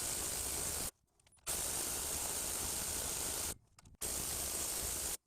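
Steady, even hiss of background noise with no distinct mechanical strokes, broken by two abrupt dead silences, one about a second in and one a little after three and a half seconds.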